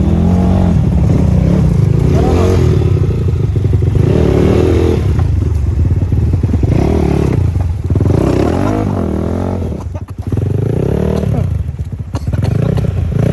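Motorcycle engine revving up and down repeatedly as it is ridden, with its pitch climbing and falling several times. It eases off briefly about ten seconds in.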